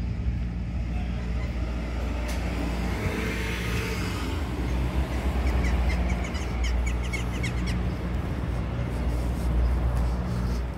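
Street traffic: a car passes about three to four seconds in, over a steady low rumble. Past the middle comes a quick run of short, high chirps.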